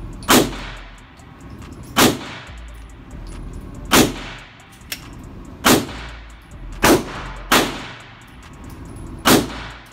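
Seven single gunshots fired one at a time, one to two seconds apart, each ringing out in the echo of an indoor shooting range.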